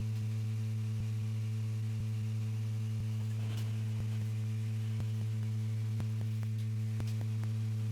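Steady low electrical hum with a few even overtones, with faint scattered clicks over it.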